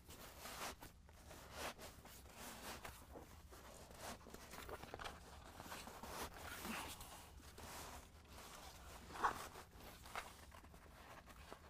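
Faint, irregular rustling and scraping of a fabric seat-cover console cover being pulled and worked over a truck's center console armrest, with a slightly louder rustle about three quarters of the way in.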